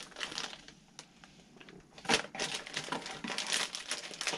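Rummaging through a box of packaged fishing lures: scattered clicks of plastic packages being moved, turning into denser clattering and rustling about two seconds in.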